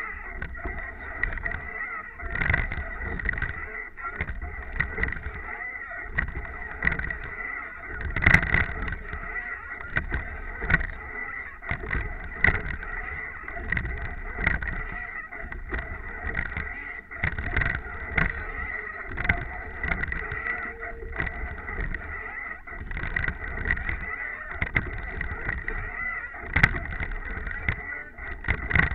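A rowing eight moving through the water, heard from its bow: a steady wash of water along the hull, with a knock roughly every one and a half to two seconds as each stroke is taken. The loudest knock comes about eight seconds in.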